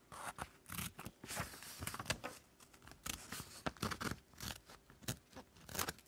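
The small spring-loaded scissors with serrated blades on a Victorinox Swiss Army knife snipping through paper folded in half, two layers thick: a run of irregular short snips and clicks.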